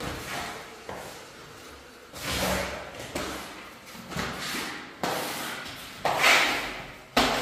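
Floor squeegee scraping across a wet concrete floor, pushing water in repeated strokes about one a second. Each stroke starts sharply and trails off, and the strokes near the end are the loudest.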